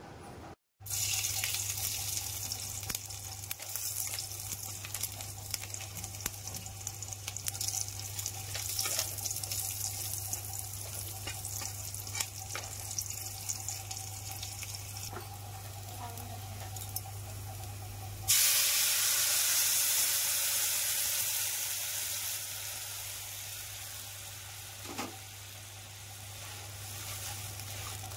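Hot oil sizzling in a kadai as garlic and dried red chillies fry, with a spatula moving in the pan. About two-thirds through, the sizzling jumps suddenly louder as a liquid mixture goes into the hot oil, then dies down over several seconds into stirring.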